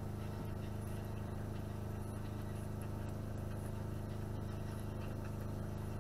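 12-volt RV fresh-water pump running with a steady hum while the open kitchen faucet spits air, the water lines not yet primed.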